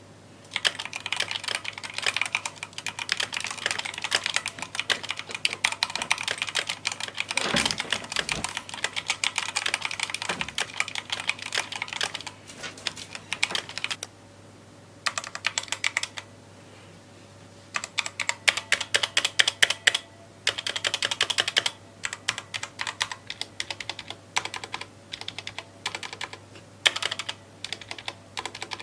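Typing on a Redragon K552 mechanical keyboard with red switches: fast runs of key clicks broken by short pauses, with a few louder single strokes partway through.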